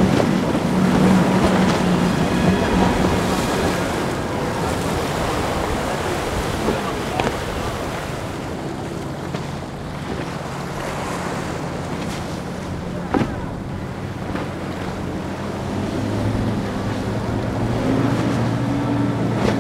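Quad Mercury Racing 400R outboard engines running on a passing center-console boat, their drone shifting in pitch near the end, under wind on the microphone and waves washing.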